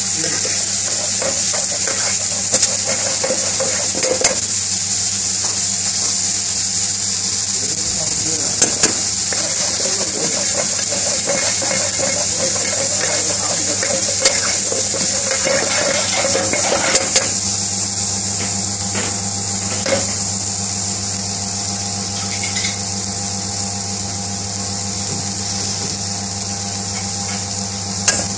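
Sliced onions and green chillies frying in a pan on a gas burner: a steady sizzling hiss over a low hum, with occasional sharp metal clinks as the ladle stirs and the pan is tossed.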